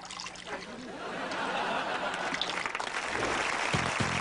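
Audience applauding with some laughter, swelling steadily from about a second in.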